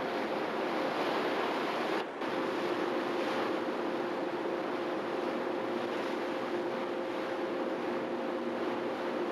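Steady rush of wind and water aboard a moving river steamer, over a steady low hum. The sound drops out briefly about two seconds in.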